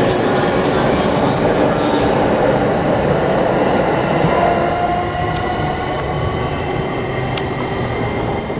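JR East E259 series electric train accelerating away from the station, with a steady rumble of wheels and running gear. Faint pitched tones rise slowly through the sound.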